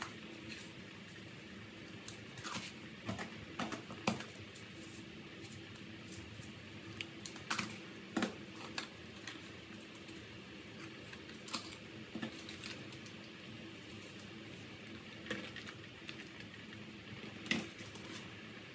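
Stockpot of pork bones and water heating toward a simmer, with irregular small pops and ticks of bubbles over a steady faint hum.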